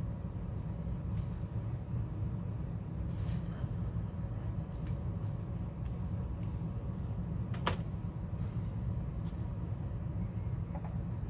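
A few light, scattered clicks and taps of hand tools and plastic model parts being handled, with one sharper click about three-quarters of the way through, over a steady low background hum.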